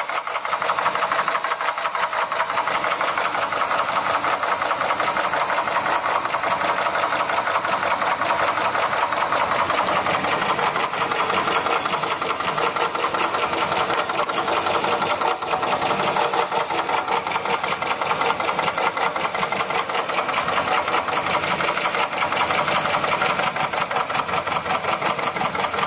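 1962 Chevrolet Impala engine running steadily with a fast, even ticking clatter.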